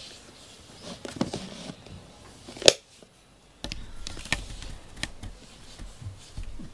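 Handling noise on the camera's microphone: a few soft clicks, then a sharp knock about two and a half seconds in. After that comes a low rumble with scattered clicks while the camera is moved closer to the cat.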